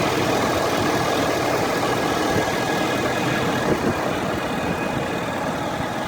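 Ford F-350 diesel engine idling warm, with a steady whine over the engine sound. The owner places the whine at the top of the engine near a black box in the centre or driver's side; a dealer blamed the transmission, and Ford mechanics have found nothing wrong.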